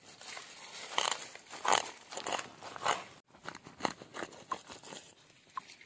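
Hands digging and pulling in wet mud and soil around the base of a water taro plant, making irregular scraping strokes about two a second.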